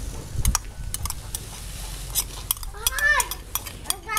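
Metal spoon clinking and scraping against a ceramic bowl as beaten egg mixture is scraped out into a pan, in a run of short, irregular clicks.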